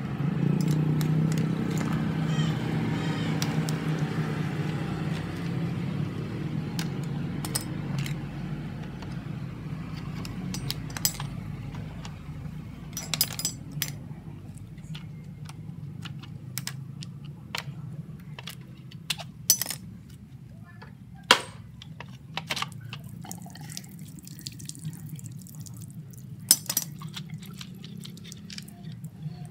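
Sharp clicks and knocks of hand tools on metal as a scooter's radiator is unbolted, over a steady low hum that is strongest at the start and fades.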